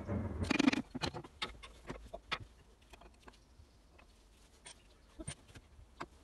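Light metallic clinks and knocks as a Ford Dorset engine's piston and connecting rod are pulled up out of the cylinder bore. A louder brief clatter comes in the first second, then scattered single clicks.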